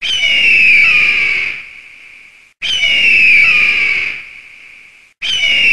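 An eagle's scream as a sound effect: a harsh, high cry that falls slightly in pitch and lasts about a second and a half, then fades. It repeats about every two and a half seconds, with two full cries and the start of a third, each copy the same.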